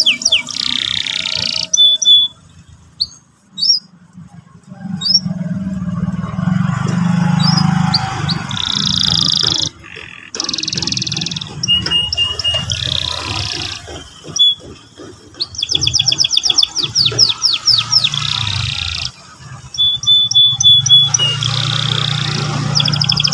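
Domestic canary singing: phrases of chirps and clear whistled notes alternate with fast rolling trills, with brief pauses between phrases, over a steady low hum.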